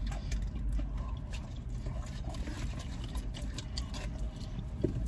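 Wet chewing and lip smacks of people eating sauced chicken wings close to the microphone: a string of small irregular clicks over a low steady rumble.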